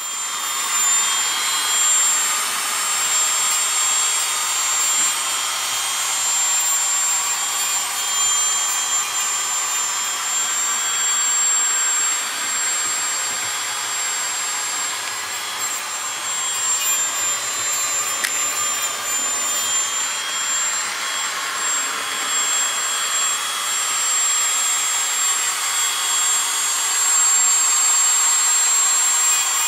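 Loud, steady high-pitched whine over a rushing hiss from a machine being run for work nearby.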